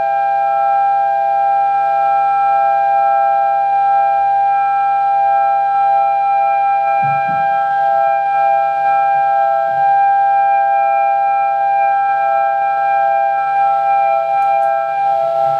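Experimental electroacoustic music for clarinet, prepared zither and electronics: a steady drone of several held tones sounding together, with a couple of soft low knocks about seven and ten seconds in.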